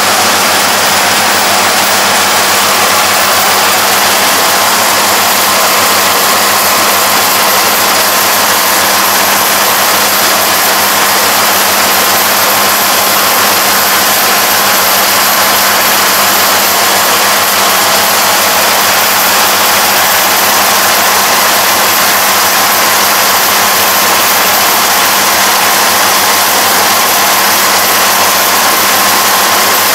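Yanmar AE447 combine harvester running steadily under load as it cuts and threshes standing grain: a loud, even engine and machinery drone with a constant hum over a broad hiss.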